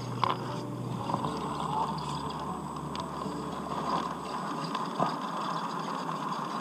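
Brushed 55-turn electric motor and gearbox of a 1/10-scale Traxxas TRX-4 Sport crawler whining at crawling speed, with about four sharp clacks as its tyres and chassis knock against rocks.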